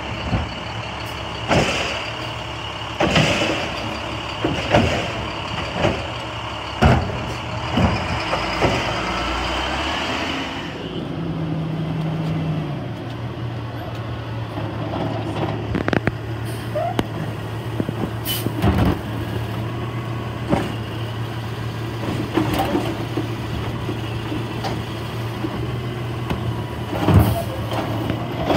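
Automated side-loader garbage truck with a Labrie body, its diesel engine running while the hydraulic arm grabs, lifts and empties a wheeled recycling cart, with a series of sharp clanks and bangs. About ten seconds in, the sound changes to a steadier low engine drone with only occasional knocks.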